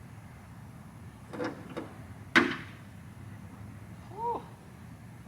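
Two light knocks, then one sharp knock with a brief ring, and a short rising-then-falling chirp about four seconds in.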